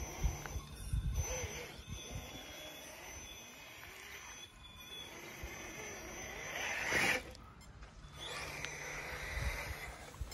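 Traxxas TRX-4 Sport RC crawler driving, its Holmes Hobbies Revolver motor on a Castle SW4 speed controller whining through the drivetrain. The whine swells to its loudest about seven seconds in, then drops off suddenly, over a low rumble of wind on the microphone.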